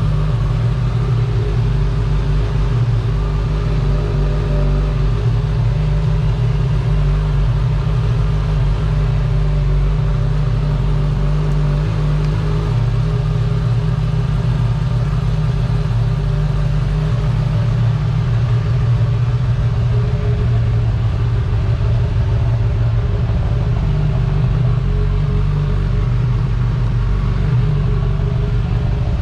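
2016 Suzuki GSX-S1000's inline-four engine idling steadily.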